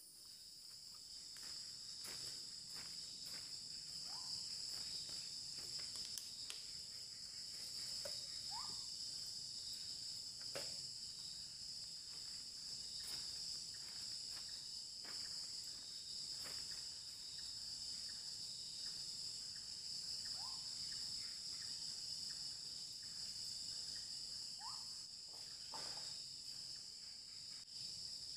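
Steady chorus of night insects such as crickets, trilling in several high, unbroken bands. Scattered faint clicks and snaps run through it, and a short rising chirp comes four times.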